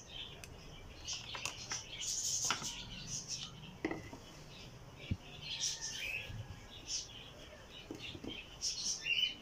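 Light handling noises: a plastic lid lifted off a glass blender jar and a plastic bowl set down beside it, a scatter of small clicks, knocks and rustles. Short high chirps come and go between them. The blender motor is not running.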